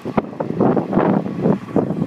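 Wind buffeting the microphone in loud, irregular rumbling gusts.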